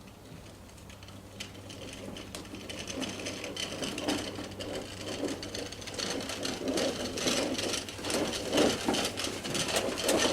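Push lawn mower rattling and clicking across grass, growing steadily louder as it comes closer.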